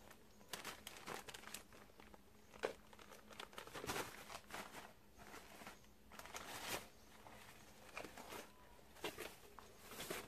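Crumpled newspaper rustling and crinkling in irregular bursts as kittens play and burrow in it, with a sharper crackle about a quarter of the way in.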